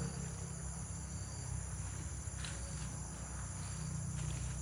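Steady chorus of crickets trilling, a high continuous shrill, over a low steady rumble.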